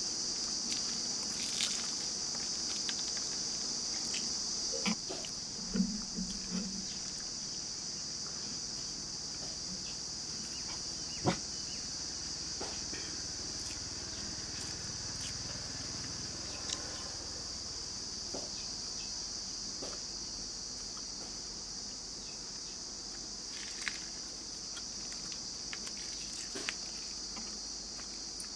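Steady high chirring of an insect chorus. Over it come scattered small clicks and taps from eating rice by hand off a plate, with one sharper click about eleven seconds in.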